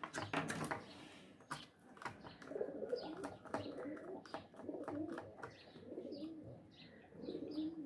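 Pigeons cooing, a faint low wavering call repeated about once a second, with light clicks of wires and a plastic terminal block being handled on a circuit board.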